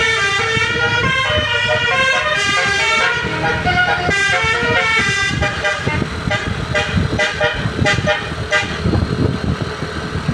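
A Basuri telolet horn, a multi-tone musical vehicle horn, playing a tune in stepping notes over a low engine rumble. The tune stops about nine seconds in, leaving the engine running.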